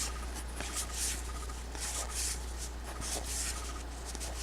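Trading cards being slid one by one off a stack, soft papery swishes about twice a second with small clicks, over a steady low hum.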